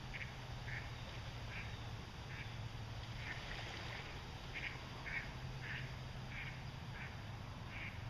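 A duck quacking in a long series of short calls, about one or two a second, over a low steady hum.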